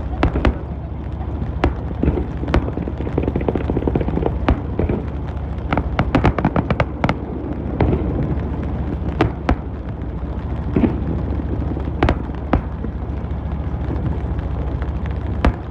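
Fireworks going off: a run of irregular sharp bangs and crackles, a few each second at times, over a steady low hum.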